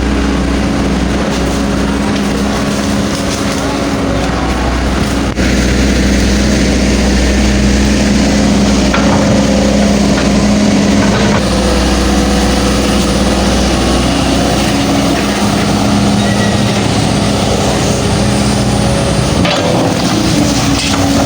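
Hydraulic excavator's diesel engine running steadily at working speed, with a brief sharp break about five seconds in.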